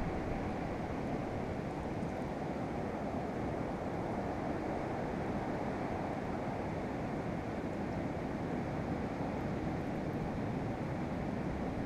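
Steady, muffled wash of ocean surf with some wind, an even roar with no distinct events.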